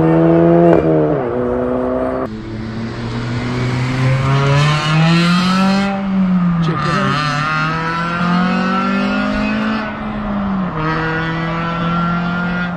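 Car engines running and being revved: the engine note rises and falls several times, with sudden changes between sections.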